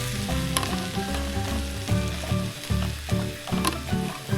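Egg omelette sizzling as it fries in a pan, with a few sharp clicks of a utensil against the pan, over background music.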